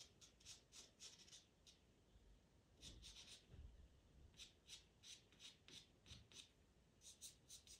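Pastel pencil scratching on Pastelmat paper in short, quick strokes, laying in fur. The strokes are faint and come in runs of several a second, with brief pauses between runs.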